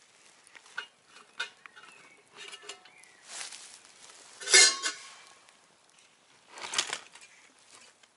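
Metal camping pot and its lid clinking and clanking as they are handled, with a few light taps and a louder ringing clank about halfway through.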